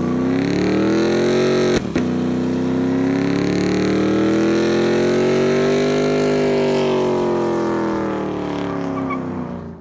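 Chevrolet Silverado pickup's engine revving hard during a burnout with the rear tyres spinning. The engine pitch climbs and holds, drops briefly, then rises slowly, holds and falls away, fading out at the end. There is a short dropout about two seconds in.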